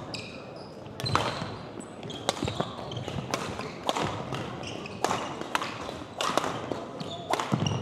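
Badminton rally: rackets striking the shuttlecock in a quick exchange, a sharp crack about once or twice a second, with short squeaks of shoes on the hardwood gym floor between the hits.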